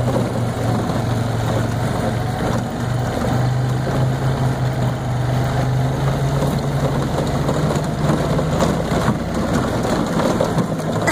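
Golf cart driving along a dirt woodland trail: a steady low hum from the cart's drive over the rumble of tyres on rough ground, with a few scattered knocks.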